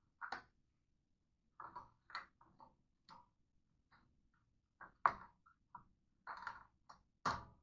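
Irregular clicks and knocks of dish rack parts being handled and fitted together, as the silverware holder is hung on the side of the rack. The loudest knocks come about five seconds in and near the end.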